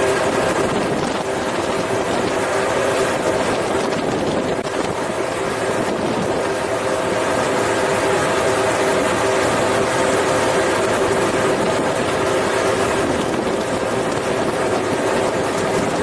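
Steady engine drone with a constant multi-tone hum under a rushing noise, running evenly without change.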